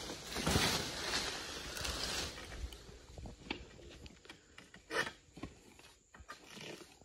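Long-pole harvesting sickle worked up in an oil palm: a rustling rush of palm fronds for the first couple of seconds, then scattered sharp knocks and snaps as the blade is pulled against the frond base and fruit-bunch stalk, the strongest about five seconds in.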